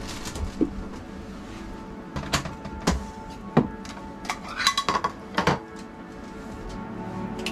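White ceramic plates clinking and knocking as they are set down on a counter: a run of sharp clinks starting about two seconds in, one ringing briefly. Soft background music plays underneath.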